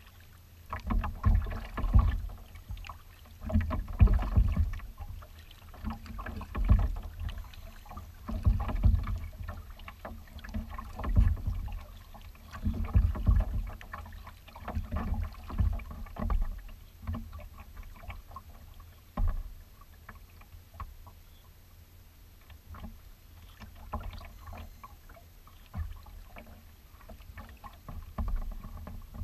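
Kayak paddling on open water: paddle strokes splashing and water slapping the hull in a rhythm of about one stroke every two seconds. The strokes ease off past the middle to quieter lapping with a few small knocks.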